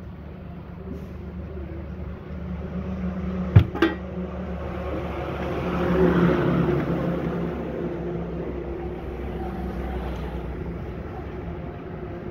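A low, steady motor rumble that swells about halfway through and then eases, like a vehicle passing. Two sharp knocks come a little before that, as the metal case of the inverter welding machine is turned and set on the bench.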